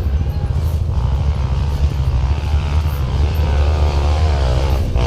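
Dirt-bike engine running with a steady low rumble, and from about three seconds in an engine note that climbs and wavers as a bike is revved.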